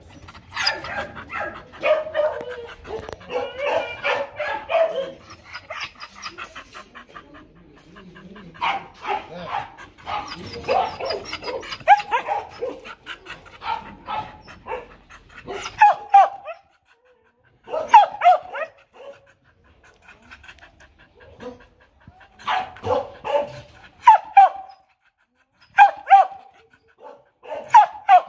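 H'Mông bobtail dog barking over and over, in quick runs at first and then in single barks a second or two apart. The owner calls it demand barking rather than a threat to bite.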